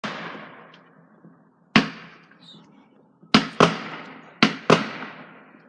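Fireworks exploding: six sharp bangs, the last four in two close pairs, each trailing off in a long echo.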